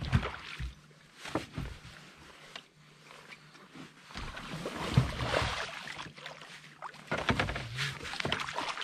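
Water splashing in bursts as a hooked bass thrashes at the surface beside the boat, loudest about halfway through and again near the end.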